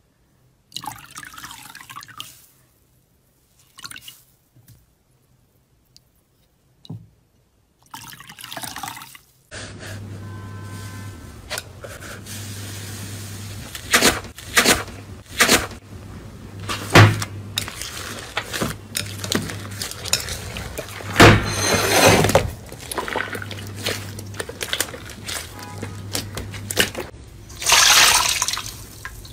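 Slime being squeezed and worked by hand, making wet squelching sounds with sharp pops and clicks: sparse bursts for the first several seconds, then busier.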